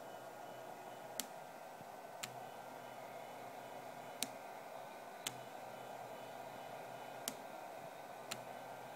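Small CNC machine running: a faint steady whine with sharp clicks that come in pairs about a second apart, with about two seconds between pairs.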